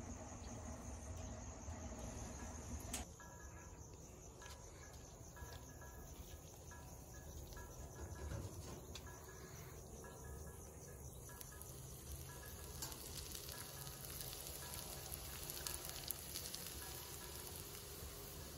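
Faint outdoor background of insects chirping, with short chirps repeating at an even pace. The background changes abruptly about three seconds in.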